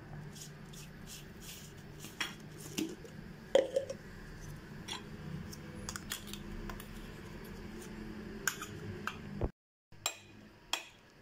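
Irregular clinks and taps of a metal utensil against a bowl while handling a freshly ground egg-and-herb mixture, over a low steady hum. The hum cuts off about nine and a half seconds in, and a few more clinks follow.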